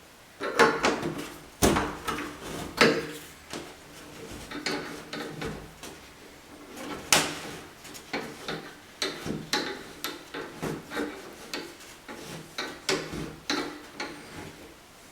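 A wrench working the nut sleeve off a shower faucet's valve stem: a string of irregular metal clicks and scrapes, some followed by a short ringing tone.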